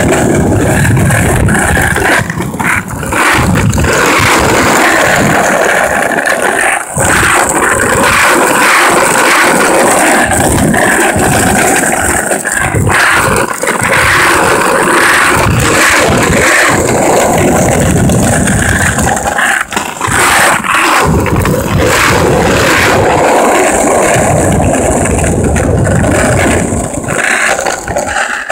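Wheels rolling over rough, cracked sidewalk pavement: a loud, continuous rumbling rattle with a few brief dips.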